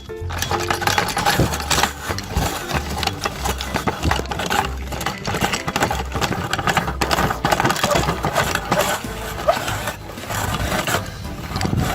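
Electric meat grinder running under load, crunching and crackling as it grinds candy, with a dense stream of small clicks over the motor.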